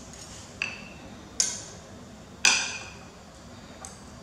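Metal spoon clinking against a ceramic dinner plate three times while scooping food, each strike ringing briefly; the third strike is the loudest.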